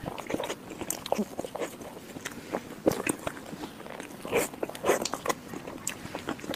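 Close-miked mouth sounds of eating soft chocolate lava mousse cake off a spoon: chewing with irregular short wet clicks and smacks.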